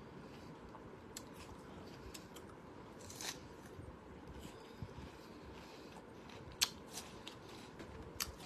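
Faint sounds of a person eating a piece of food: a bite about three seconds in and quiet chewing. A few small clicks of objects being handled, the sharpest a little past six seconds in.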